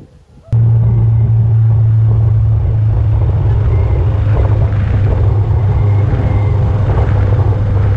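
Royal Enfield motorcycle under way at steady speed: a loud, steady engine drone that cuts in abruptly about half a second in.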